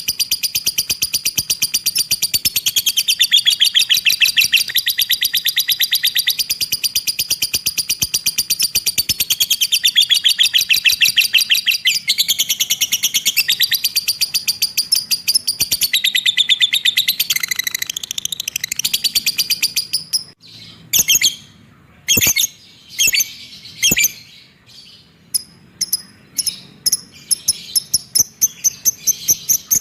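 Lovebird giving its long 'ekek' trill: a very fast, even chattering run for about twenty seconds, which then breaks into short separate bursts with gaps near the end.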